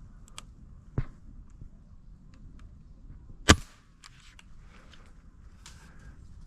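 A .22 Gamo Swarm Fusion break-barrel air rifle fires once, a sharp crack about three and a half seconds in. A duller single thump comes about a second in.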